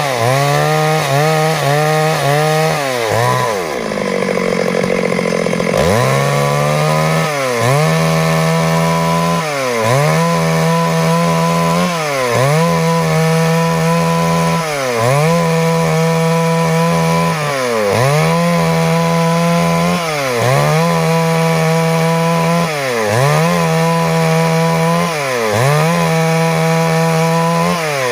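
Stihl MS 382 two-stroke chainsaw running at high speed while cutting wood. The engine speed dips briefly and recovers about every two seconds. Around four seconds in it drops to a low speed for a couple of seconds before revving back up.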